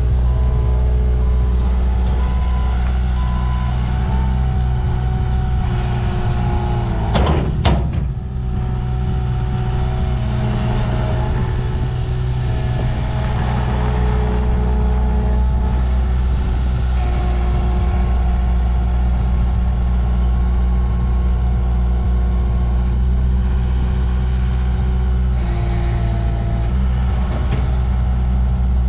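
Hyundai HSL650-7 skid steer loader's diesel engine running steadily, with a backup alarm beeping in short repeated tones during the first few seconds. A brief loud burst of noise comes about seven seconds in.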